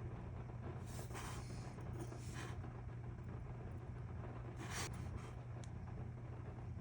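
Faint steady low hum with a few soft, brief rustles about a second or two apart, in keeping with small parts being handled at a workbench.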